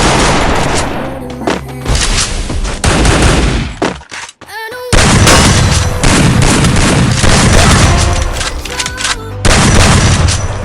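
Rapid video-game gunfire and booms in a firefight, over background music. The shooting stops briefly about four seconds in, then resumes.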